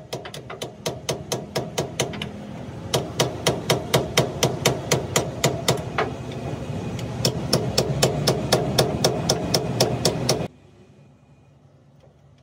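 Rapid, evenly spaced hammer blows, about three a second, on a Hino truck's rear differential. The blows stop abruptly about ten seconds in.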